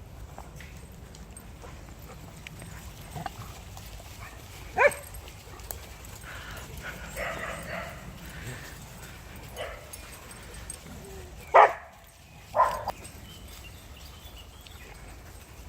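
Dogs barking: one sharp bark about five seconds in and two more close together near twelve seconds, with quieter sounds between.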